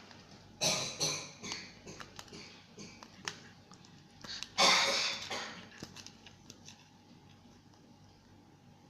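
Sticky glitter slime being stirred and worked, making wet squelching smacks about half a second in and again near five seconds in, with small sticky clicks between.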